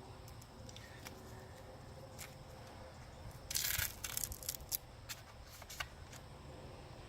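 Handling of a tire plug repair kit: scattered small clicks and taps, with a brief crinkling rustle about three and a half seconds in.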